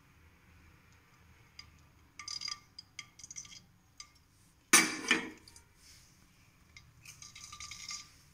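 Light clinks and taps of kitchenware as the emptied oil bowl is handled around an aluminium kadai, with one louder clatter about five seconds in.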